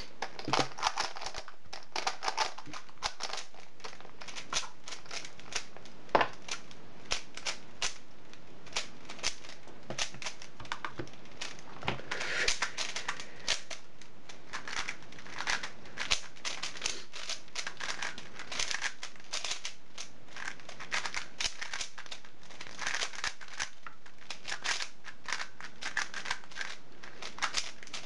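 Plastic 3x3 Rubik's cubes being turned fast during a speedsolve: a dense, uneven run of clicks and clacks as the layers snap round.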